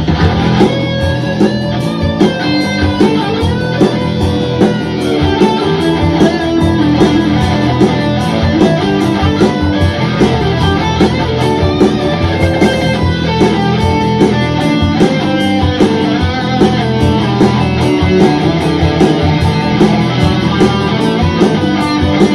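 Electric guitar playing along with a backing track, both coming through studio monitor speakers and picked up in the room.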